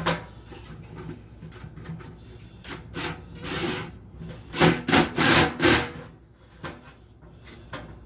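A cordless drill runs while flexible aluminium dryer-vent duct is clamped onto a can, with the foil duct rustling and rubbing. There are three short loud bursts about five seconds in.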